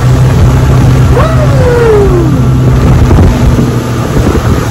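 Speedboat's outboard motor running steadily at speed, with rushing wind and water. About a second in, a voice gives one long call that falls in pitch.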